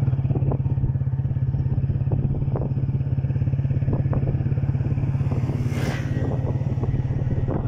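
Motorcycle engine running at a steady cruising speed, heard from the rider's seat, with a fast even pulsing. A brief rushing hiss comes about six seconds in.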